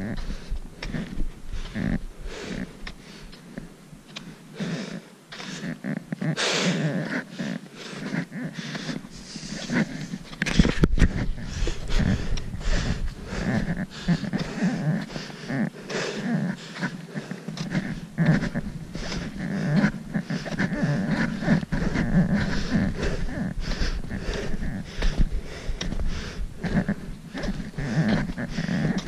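Boots crunching on packed snow in a steady walking rhythm, with trekking poles planting in the snow and the hiker breathing hard. A sharper knock about eleven seconds in.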